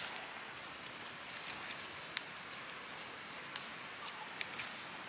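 A few short sharp snaps as kochchi chillies (tabasco peppers) are picked off the bush by hand, with light rustling of the plant's leaves. A steady high-pitched whine runs underneath.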